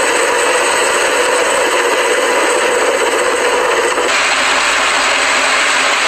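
Military attack helicopters running, a steady loud rush of turbine and rotor noise that changes character about four seconds in.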